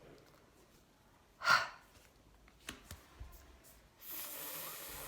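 A short breathy vocal sound from a woman about one and a half seconds in, then a soft steady hiss from about four seconds in.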